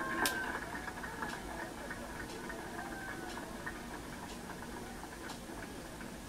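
Low murmur of distant voices from a gathered crowd, with light ticks about once a second.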